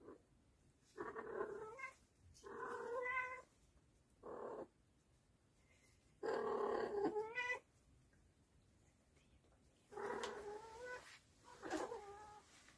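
Cats caterwauling during mating play with a female in heat: six drawn-out yowls, the longest and loudest about halfway through, several rising in pitch at their ends.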